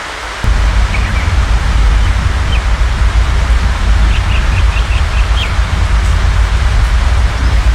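Steady rain hiss, with a low rumble that comes in suddenly about half a second in and stays as the loudest sound. Small birds chirp briefly a few times, with a quick run of about seven chirps near the middle.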